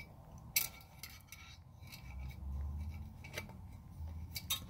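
Light metallic clicks and rubbing of a piston ring being handled and set into a 5.3 V8's cylinder bore to check its end gap, with a sharp tick about half a second in and a few more near the end.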